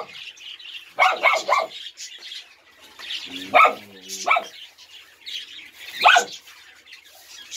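Small dogs barking in short, high yaps, a few at a time with gaps between them. Three come in quick succession about a second in, and single ones follow. Birds chirp faintly and steadily underneath.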